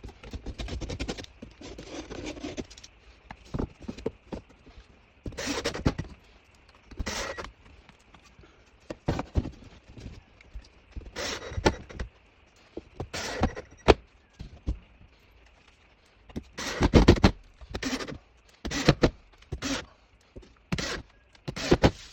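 Irregular scrapes and knocks of hand tools working on drywall and wood backing, each lasting about a second, with short pauses between them.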